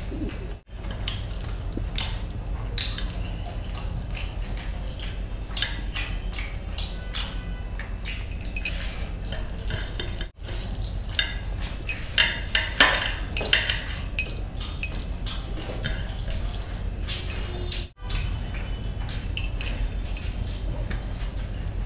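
Close-miked eating sounds: wet chewing and lip smacking as a man eats rice and chicken by hand, with small clicks and occasional light clinks and a louder patch of smacking about twelve to fourteen seconds in, over a steady low hum. The sound cuts out briefly three times, at edit cuts.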